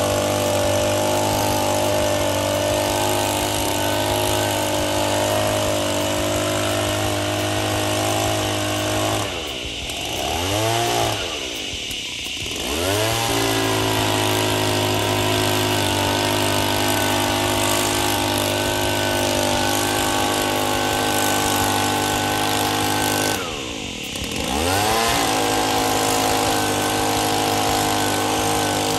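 Gas-powered leaf blower engine running at full throttle. Three times the throttle is let off, so the engine drops toward idle and then revs back up: twice in quick succession about ten seconds in, and once more near the end.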